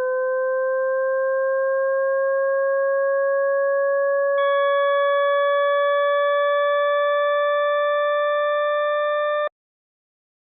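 Computer-generated electronic tone made of a few pure partials, gliding slowly upward in pitch. About four seconds in, two higher overtones join and brighten it. It cuts off sharply about a second before the end.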